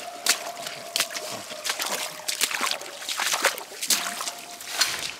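Footsteps splashing and sloshing through shallow floodwater and soggy leaf litter, quick uneven steps about two or three a second.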